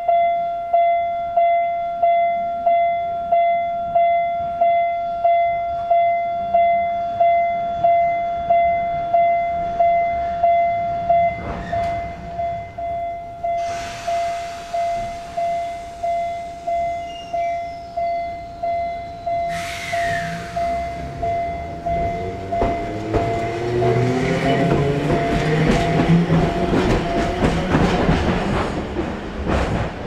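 Japanese railway level-crossing bell ringing just under twice a second while the barriers are down. In the second half a Randen Kitano Line electric train passes over the crossing, its motor and wheel noise rising over the bell, and both die away near the end.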